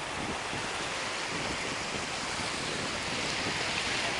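Ocean surf breaking and washing along the beach, a steady rush of waves with some wind on the microphone.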